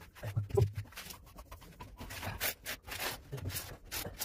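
Rubber grout float pressing and rubbing a sheet of small mosaic tiles into tile adhesive, a series of short scraping strokes. A low voice-like sound comes about half a second in and again near the end.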